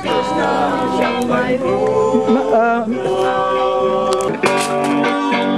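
A group of people singing together loudly, with a guitar playing along.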